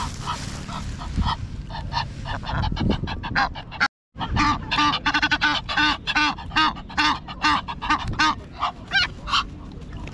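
Egyptian geese honking in short, repeated calls, several a second, growing denser after a brief dropout about four seconds in.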